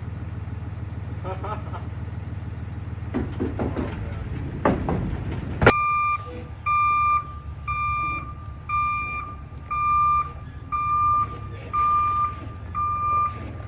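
Delivery truck reversing: its engine runs with a steady low rumble, and about halfway in its back-up alarm starts, a single-pitched beep repeating about once a second.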